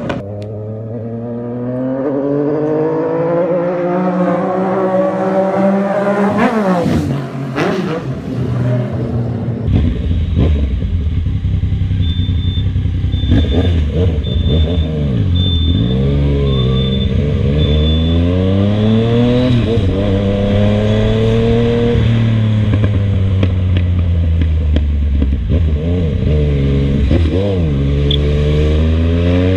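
Yamaha MT-09's three-cylinder engine through an aftermarket stainless 3-into-1 exhaust, ridden under acceleration. The engine note climbs in pitch, then drops and climbs again over and over as the revs rise and fall through gear changes and throttle lifts.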